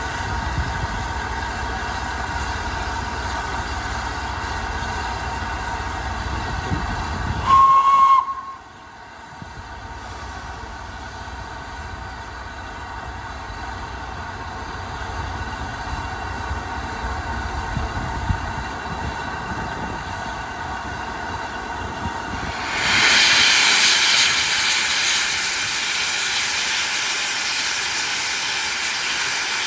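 Steam locomotive Flying Scotsman, an LNER A3 Pacific: a short blast on its whistle about a quarter of the way in, then later a loud, steady hiss of escaping steam.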